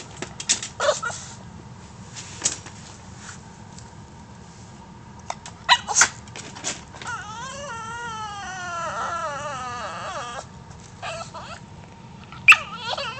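Small dog in a wire crate crying like a human baby: short yelps and whimpers, then a long wavering cry of about three seconds in the middle, and more short yelping cries near the end.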